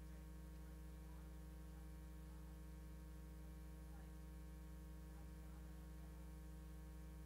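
Faint, steady electrical hum from the recording chain, with a distant voice faintly heard off-mic, typical of an audience member asking a question away from the microphone.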